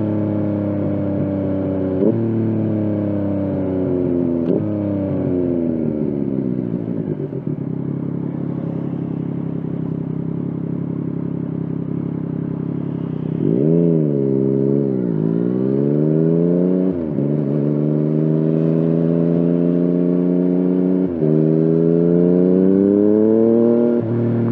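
Yamaha FZ-09 (MT-09) 847 cc inline three-cylinder engine under way. It accelerates with two quick upshifts, the pitch climbing and then dropping at each, and then falls away in a long deceleration. Near the middle the revs rise and fall quickly twice, then the engine pulls hard again through two more upshifts, with wind rush throughout.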